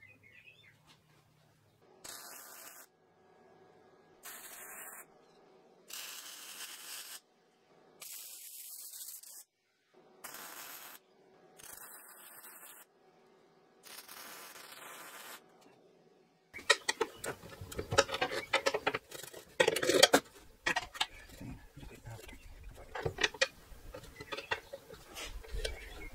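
MIG welder laying seven short tack welds, each a crackling hiss about a second long, with pauses between. After a cut at about two-thirds of the way, louder scattered knocks and clicks of metal being handled.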